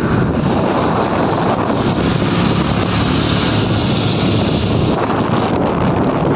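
Steady wind buffeting the microphone on a moving vehicle, mixed with engine and road noise from traffic at speed.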